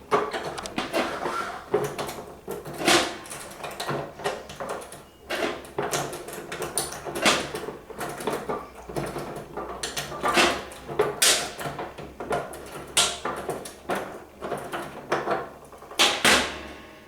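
Irregular clicks, knocks and rattles as the back of a vending tower is unlocked with a key and its back panel and parts are handled and moved.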